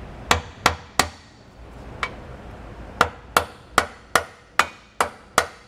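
Hammer tapping a tight-fitting spacer up into a trailer leaf-spring hanger bracket. There are three quick taps, a single light tap, then a steady run of seven taps about two and a half a second.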